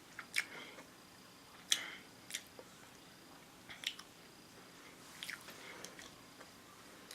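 A person chewing food with the mouth close to the microphone: faint, with a few sharp, crisp crackles and mouth clicks spaced a second or so apart.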